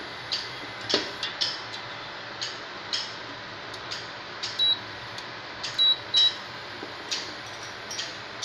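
Frying oil heating in a stainless steel pot on an induction cooktop: scattered sharp crackles and clicks over a steady hiss. Three short high beeps sound about halfway through and are the loudest sounds.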